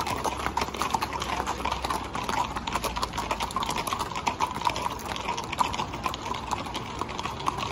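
Hooves of several horses walking on an asphalt road: a dense, irregular, overlapping clip-clop.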